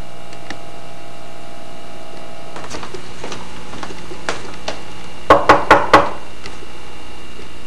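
A few light footfalls, then four quick, loud knocks on a door about five seconds in, over a steady background hum.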